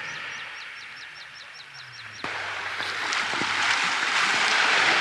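A bird calling in a quick series of short, high, falling notes, about five a second. About two seconds in, this gives way abruptly to a loud, steady rushing noise.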